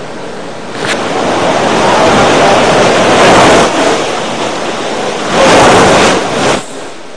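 Heavy rain pouring down with gusting wind, a loud rushing noise that swells about a second in, peaks around three seconds and again near six seconds, then drops off sharply.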